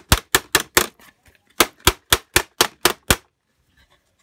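Hard plastic shell of an Otterbox Defender case being rapped repeatedly: sharp knocks about four a second, a run of four, then after a pause a run of seven that stops about a second before the end.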